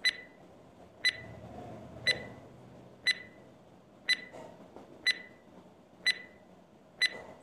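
Countdown timer sound effect: a short, sharp electronic tick-beep once a second, eight times, marking the seconds of a ten-second countdown.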